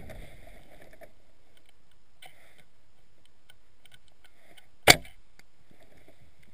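A gas-powered tranquilliser dart rifle fires once, a single sharp crack about five seconds in, darting a wild horse. A low rustle of handling or wind fills the first second.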